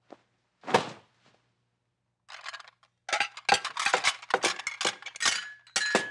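Cartoon sound effects of china cups, saucers and plates being tossed and caught: a short whoosh about a second in, then a fast run of clattering and clinking for the last three seconds, with a brief ring near the end.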